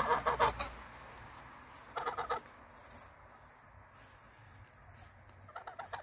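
Domestic geese giving three short bursts of rapid, stuttering calls: one at the start, one about two seconds in, and a shorter one near the end.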